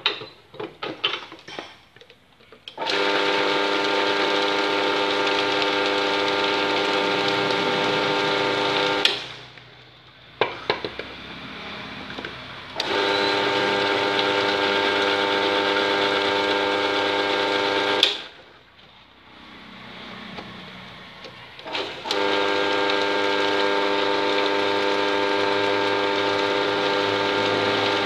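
Bench drill press motor running three times for about six seconds each, with a steady whine, mincing wood ear mushrooms. Each run starts and stops abruptly, with clicks and knocks between the runs.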